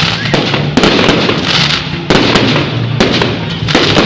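Fireworks going off: a rapid, irregular string of sharp bangs over continuous crackling.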